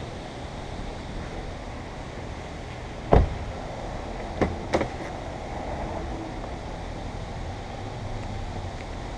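A single loud thump about three seconds in, then two lighter knocks close together over a second later, over a steady background hum.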